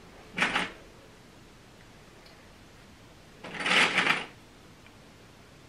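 Two short bursts of clicking and rustling as plastic sewing clips are handled and clipped onto the edge of fabric, one about half a second in and a longer one near four seconds.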